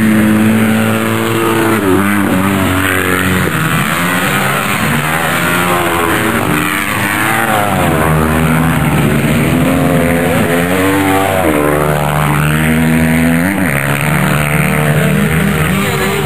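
Small racing engine on an ice track, revving hard. Its pitch climbs and drops again and again as the vehicle accelerates, shifts gear and slows for the turns.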